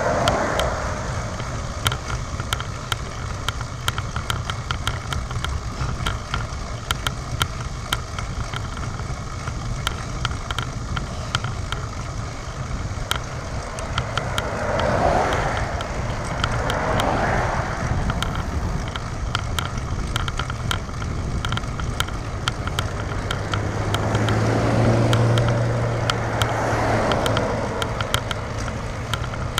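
Wind noise and road rattle on a handlebar-mounted camera of a road bike in motion, with frequent small clicks. Cars pass on the road: swells of tyre noise near the start and twice around the middle, and near the end a louder pass with a low engine hum as a car overtakes.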